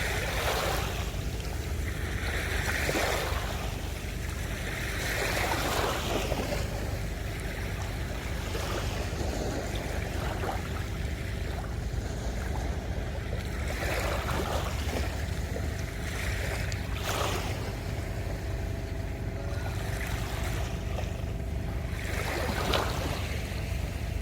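Small waves washing up on a sandy beach, each surge a swelling hiss every few seconds, over a steady low rumble of wind on the microphone.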